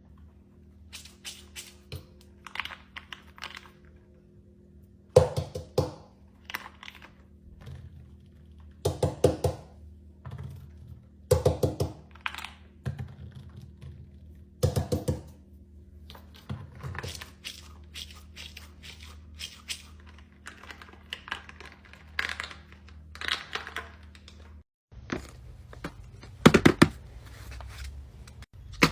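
Fidget toys being pressed and handled: irregular small clicks and pops, some in quick clusters of several, over a faint steady hum.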